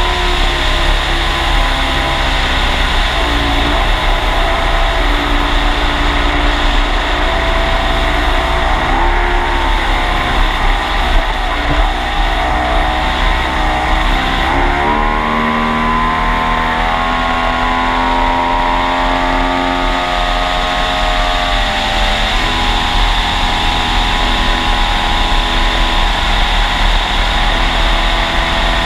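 Mercury Racing Pro Max 300X V6 two-stroke outboard running hard at high speed, heard from right on its cowling. The engine note sags about eleven seconds in, climbs again around fifteen seconds, and drops back a little past twenty seconds, with heavy wind rumble over the microphone throughout.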